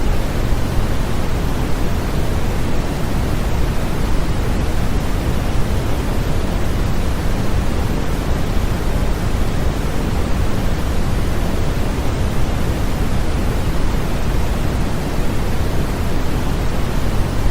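Continuous synthetic sleep noise, a steady even hiss with more weight in the low end than the highs, with no change or break.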